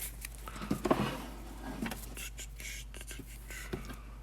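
Hands handling trading cards and their packaging on a table: irregular rustling and a few light clicks, busiest about a second in, over a steady low hum.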